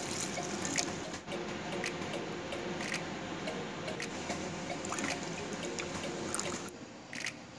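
Water and then laban (a thin yogurt drink) poured in a steady trickling stream into a stainless steel pot, splashing onto the labneh already in it.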